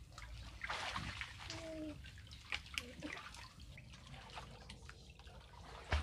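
Water sloshing and splashing around people wading waist-deep and handling a fishing net, with a couple of sharper splashes about halfway through.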